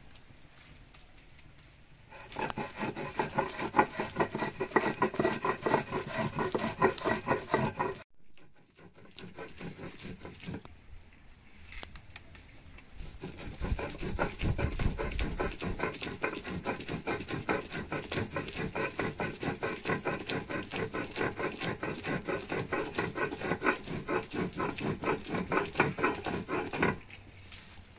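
Stone hand grinder (mano) rubbed back and forth on a stone metate, grinding in fast, even scraping strokes. The grinding starts about two seconds in, eases off for several seconds near the middle, then resumes until just before the end.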